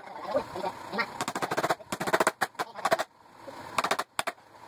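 Sped-up, fast-motion workshop audio: pitched-up, quacking chatter and rapid rattling clatter come in several short spurts with quieter gaps between them.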